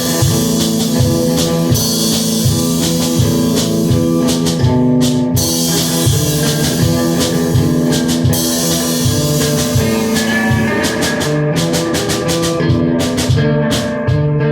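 Guitar and drum kit playing a rock piece together: held, ringing guitar chords over a steady drum beat with cymbal wash, the drumming turning choppier with separate hits near the end.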